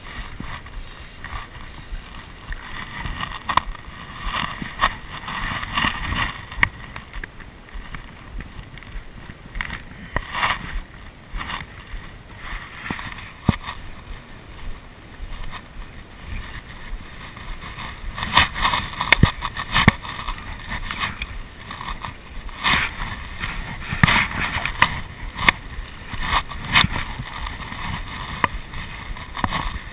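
Wind rumbling on a body-worn camera's microphone, with scattered short knocks and rustles that grow busier in the second half.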